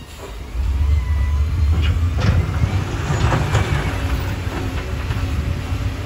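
Wheel loader's diesel engine running under load as it pushes its bucket into a pile of broken stone. The deep rumble swells about half a second in, with a burst of rock scraping and clattering in the middle.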